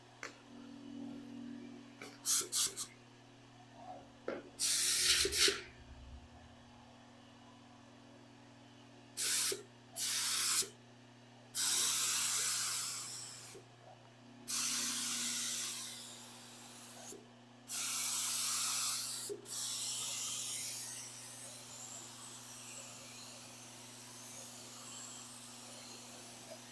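Finish being sprayed in hissing bursts: three quick spurts, then longer passes of about one to two seconds each, over a steady low hum.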